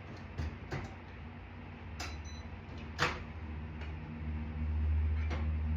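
A series of sharp clicks and knocks, such as a door being opened and a bowl being handled, the loudest about three seconds in; a low steady hum sets in about four seconds in.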